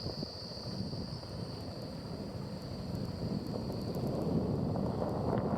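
Wind buffeting the microphone of a moving motor scooter, over engine and road noise, with a steady high whine running through it.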